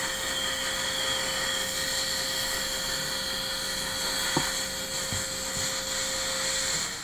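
Dental implant motor and contra-angle handpiece running steadily, turning a 3.5 × 8.5 mm OneGuide drill into the jawbone. Its even whine sits over a steady hiss and cuts off shortly before the end.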